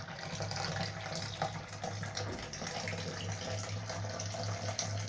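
Water running from a kitchen tap into a sink, with small clinks and a steady low hum underneath.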